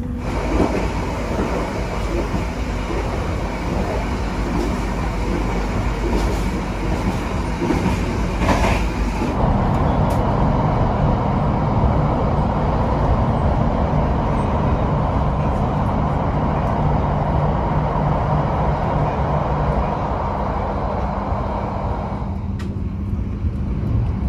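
Argo Wilis passenger train running along the track with a steady rumble, which grows fuller and a little louder about ten seconds in and eases near the end.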